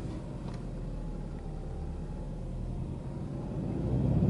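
Subaru Legacy B4 2.0GT spec B's turbocharged 2.0-litre flat-four (boxer) engine idling steadily just after a cold start, at a raised fast idle of around 1,500 rpm, heard from inside the cabin. The engine note rises slightly near the end as the revs climb.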